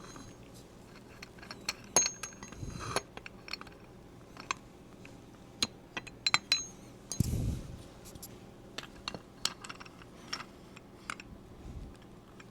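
Scattered light metallic clicks and clinks, some ringing briefly, as a pistol slide and a sight pusher tool are handled and lined up; a soft low thump sounds about seven seconds in.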